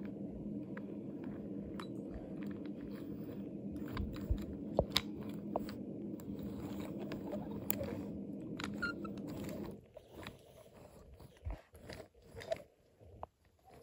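Wooden toy train cars rolled by hand along wooden track, the wheels rumbling steadily with frequent sharp clicks and clacks from the cars and track joints. The rolling stops about ten seconds in, leaving a few scattered clicks and knocks.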